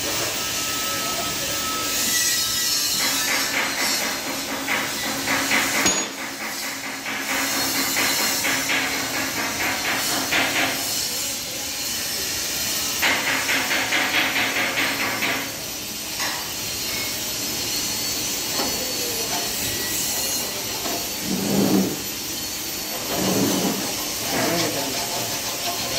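Metal being filed and rubbed down by hand, in several bursts a few seconds long of fast rasping strokes.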